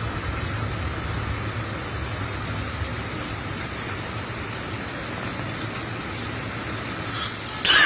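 Steady rushing noise of heavy rain with a vehicle's low running rumble underneath, broken by a few loud brief bursts near the end.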